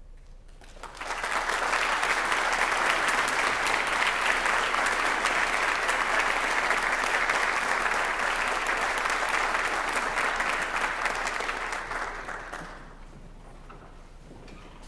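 Audience applauding in a concert hall. The clapping breaks out about a second in, holds steady, and dies away a couple of seconds before the end.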